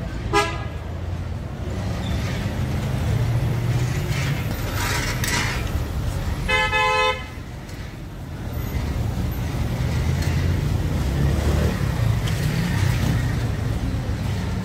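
Street traffic with engines running steadily and a vehicle horn: a short toot just after the start, then one clear honk of about half a second near the middle.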